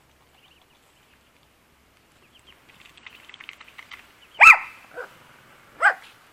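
Small dog barking: a sharp bark about halfway through, a softer yelp just after it, and a second sharp bark near the end.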